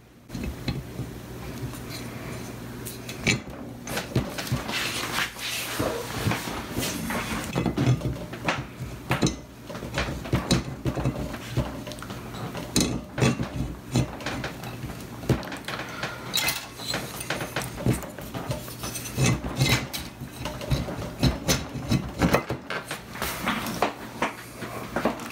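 Aluminium Shovelhead cylinder head and lower rocker box being worked onto the head studs and onto each other on a bench: irregular metal clinks, knocks and scraping of aluminium parts.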